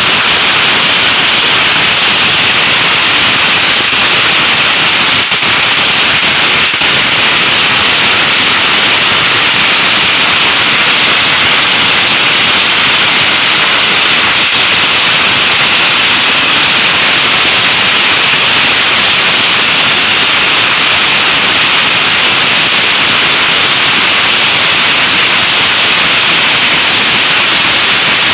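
Several long hanging strings of firecrackers burning down together: a very loud, dense crackle in which the single bangs merge into one steady rattle, unbroken throughout.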